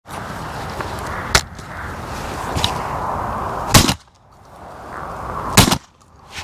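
Three shotgun shots: a sharp crack about a second and a half in, then two louder shots with a short ring after them, near the middle and shortly before the end, over a steady background hiss.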